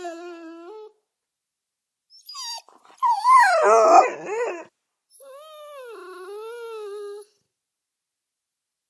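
Dog whimpering in separate high, whining cries. A short whine opens, a louder, rougher whimper comes in the middle, and a long whine that sags in pitch comes near the end.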